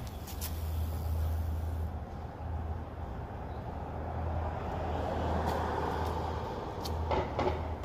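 Street traffic: a car drives past, its tyre and engine noise swelling about five to six seconds in, over a steady low hum. A few sharp clicks come near the end.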